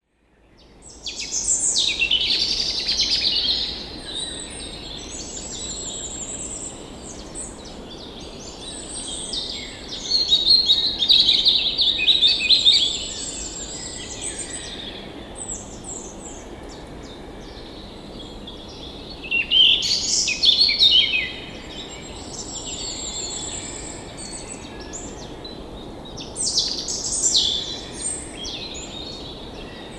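Several songbirds singing and chirping, with louder bursts of song every several seconds, over a steady low background hiss.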